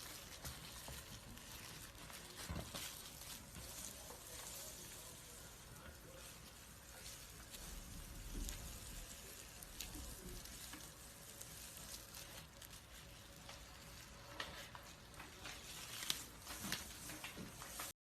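A snake shedding its skin, its dry old skin crinkling and crackling as it peels away: a steady fizz of tiny clicks with a few louder ones.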